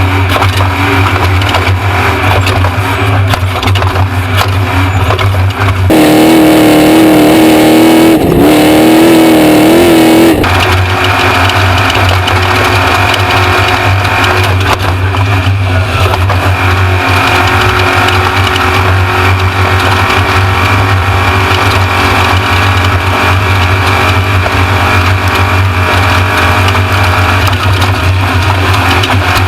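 Off-road race truck engine running hard under load, with tyre and chassis noise. A louder stretch from about six to ten seconds in carries a clear engine note rising and falling, and it starts and stops suddenly.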